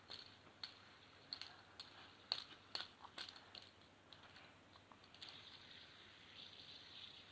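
Faint, irregular clicks and taps, about a dozen in the first five seconds, from a plastic fidget spinner being handled and knocked against an object. Quieter room tone after that.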